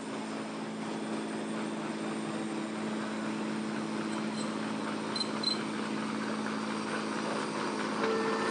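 Large diesel engine of a river passenger launch running steadily, a low droning hum over a haze of water and wind noise; a second, higher steady tone joins near the end.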